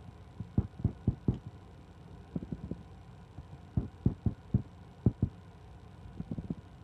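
Dull taps and knocks from fingers tapping and handling a smartphone close to the microphone. They come in irregular clusters of two to four, over a faint low hum.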